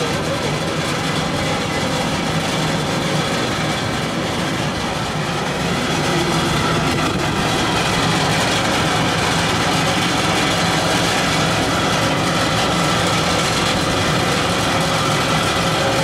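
Biomass gasifier's gas burner running: the flame of producer gas jetting from the burner with its blower fan, a steady noise that gets a little louder about six seconds in.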